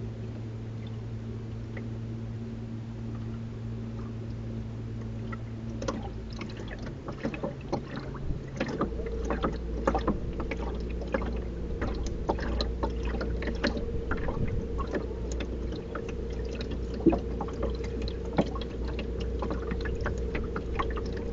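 Lake water lapping and splashing against the side of a small moving boat, with the short splashes growing busier from about six seconds in. A steady low hum runs underneath and drops in pitch about nine seconds in.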